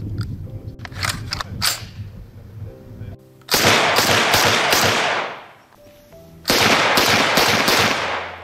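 Music with a few sharp clicks, then two bursts of full-automatic fire from a Zastava M56 submachine gun in 7.62×25 mm Tokarev, each about two seconds long and separated by about a second.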